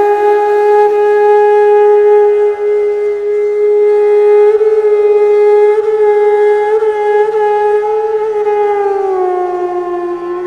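Background music: a wind instrument holds one long note, which slides down a little about a second before the end, over a faint low drone.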